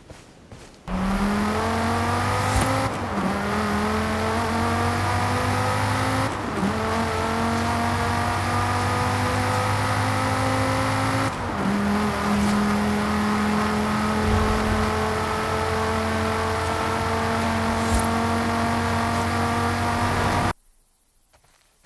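Car engine accelerating hard through the gears. The pitch climbs steadily and drops sharply at each of three gear changes, then climbs again. It starts and cuts off abruptly.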